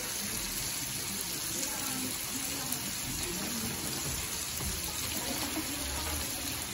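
Prawns frying in hot oil in a pan: steady sizzling.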